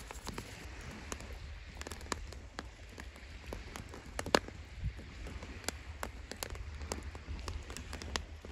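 Firewood burning in a portable grill, crackling with irregular sharp pops over a low steady rumble; the loudest pop comes about four seconds in.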